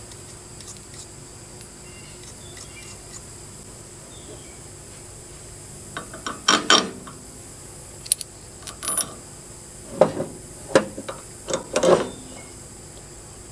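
Metal clinks and knocks of a wrench and small parts against the steel steering spindle of a John Deere 400 riding mower, starting about six seconds in and coming in short bursts as a socket wrench is set on the spindle nut and worked.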